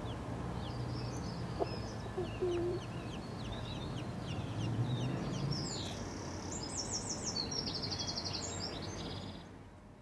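Baby chicks peeping: many short, falling cheeps in quick succession, with faster high chirping trills later on. The sound fades out at the very end.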